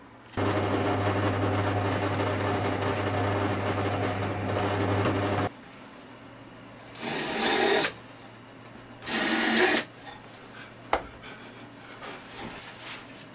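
Handheld cordless drill running steadily at one speed for about five seconds, then two shorter runs of about a second each, drilling dowel holes through a plywood lid into the box below. A single click follows near the end.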